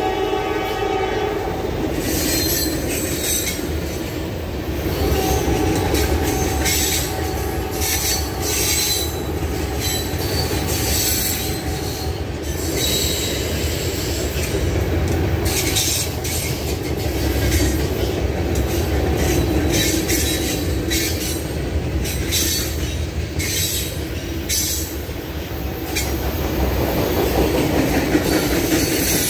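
Norfolk Southern freight cars rolling past close by: a steady low rumble with wheels clacking over the rail joints, and a high wheel squeal heard at times, strongest in the first half.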